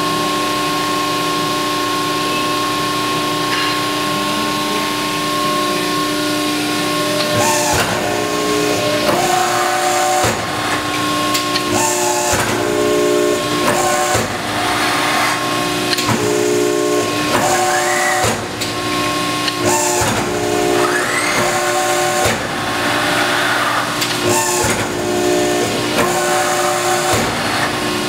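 1989 Cincinnati 135-ton hydraulic press brake running, with the steady hum and whine of its hydraulic pump. From about seven seconds in, the ram cycles again and again, about every two seconds: the pump's pitch shifts with each stroke, with clicks and a hiss of noise.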